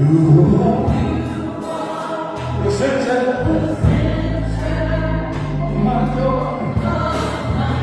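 Church choir singing a gospel song in several voices, over long held low accompaniment notes.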